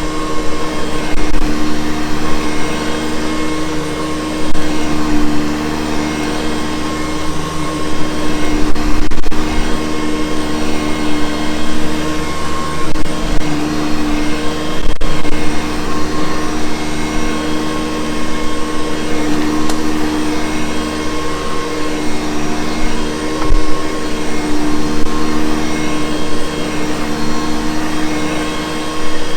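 Hoover Convertible U4387 upright vacuum cleaner running steadily: a loud motor hum with a steady whine of several held tones, with small rises and falls in loudness.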